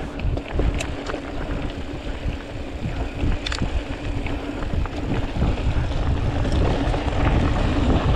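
Mountain bike being ridden on a dirt trail: wind buffeting the camera microphone over the rumble of the tyres, with a few sharp rattles from the bike. It grows louder as the speed builds.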